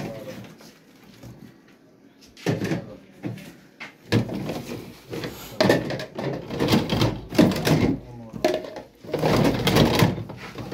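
Plastic pipe fittings clattering and rustling as they are handled, counted and packed, in irregular bursts that begin about two and a half seconds in and grow busier toward the end.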